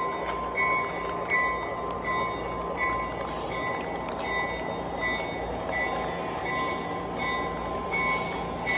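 O gauge three-rail model trains running, their wheels making a steady rumble over the track with light clicks. A high bell rings over it about every 0.7 seconds.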